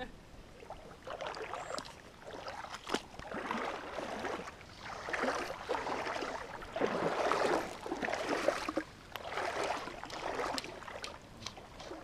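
Someone wading through a shallow mountain creek, the water sloshing and splashing around the legs with each step, about once a second.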